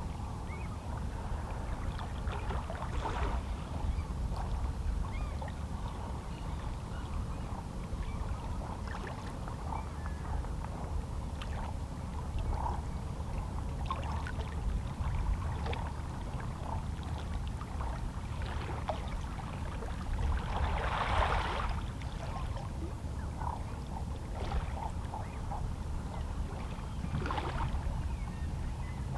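Calm sea: small waves lapping and splashing against shoreline rocks over a steady low wash of water. Splashes come every few seconds, the biggest about two-thirds of the way in.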